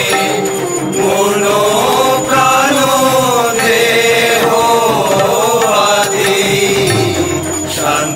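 Devotional chant-like singing with music: a voice holding long, wavering notes over a steady sustained accompaniment.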